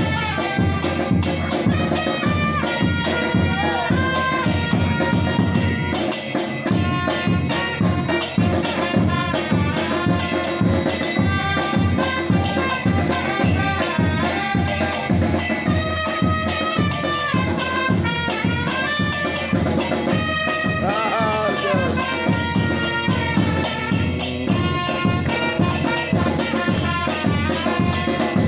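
Batucada percussion group playing a driving, steady drum groove, with a melody line playing over the drums.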